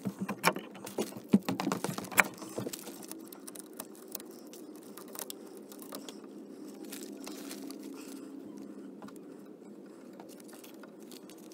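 Hands handling old stripped electrical wires, with a cluster of sharp clicks and rustles in the first couple of seconds and quieter fiddling ticks after that, over a steady low hum.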